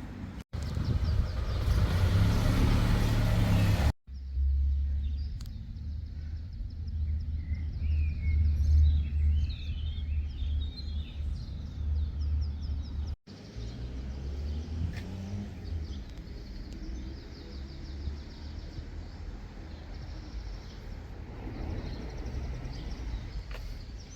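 Outdoor background noise: a steady low rumble, with a few short bird chirps from about five seconds in. The sound changes abruptly three times where clips are cut together.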